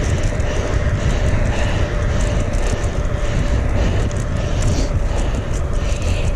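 Wind buffeting the microphone of a camera on a moving bicycle: a steady, loud low rumble.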